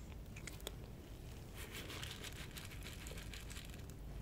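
A plastic bag of dry cat food crinkling as kibble is poured out onto concrete, a dense crackling starting about a second and a half in, after a few sharp clicks.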